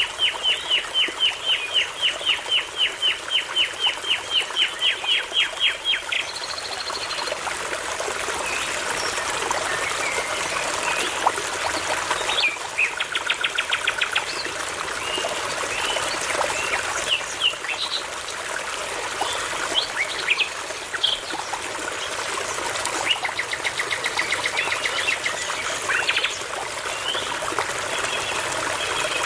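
Songbirds singing over the steady babble of a brook. First comes a rapid run of sharp repeated notes, about five a second, lasting some six seconds. Then come varied chirps and short trills, and another quick repeated phrase near the end.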